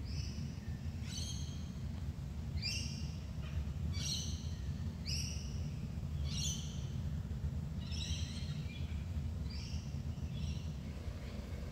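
A bird calling over and over, a short call roughly every second and a bit, over a steady low rumble.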